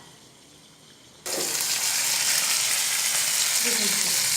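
Oil sizzling loudly around whole bitter gourds shallow-frying in a pan. It is a steady hiss that comes in suddenly about a second in.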